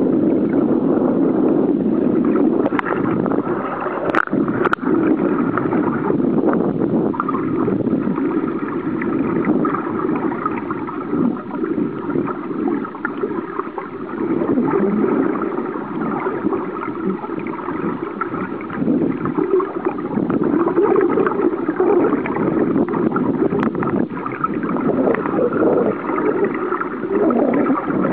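Underwater noise of water gurgling and rushing over a submerged camera, a dense steady wash with a few sharp clicks in the first five seconds.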